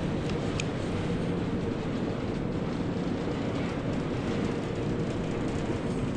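Conveyor-belt surface lift (magic carpet) in Snowbird's Peruvian Tunnel running: a steady mechanical rumble with a faint drone, and a brief high squeak about half a second in.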